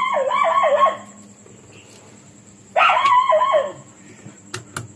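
A dog giving two quick runs of short cries that fall in pitch, one at the start and one about three seconds in, with a few light clicks near the end.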